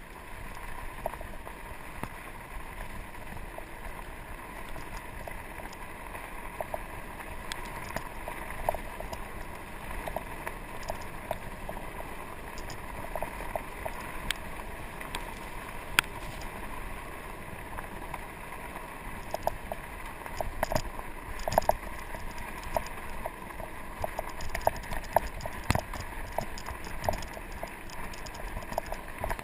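Norco Sasquatch fat bike rolling fast down a rough dirt trail: a steady rush of wind and tyre noise with frequent rattles and knocks from the bike over bumps, busier in the second half.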